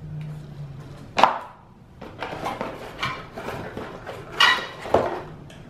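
Cardboard packaging being handled: a cardboard insert tray is lifted out of a box and set down on a wooden tabletop, with rustling and scraping of cardboard and a few sharp knocks, one about a second in and two near the end.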